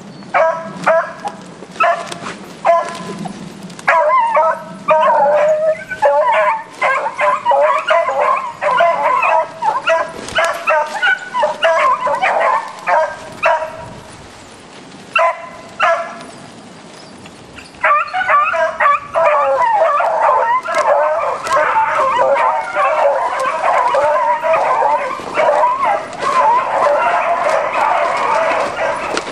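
A pack of beagles giving tongue while hunting roe deer, many hounds baying and yelping over one another. It begins with a few separate yelps, swells into a continuous chorus, breaks off briefly a little past the middle, then resumes in full cry.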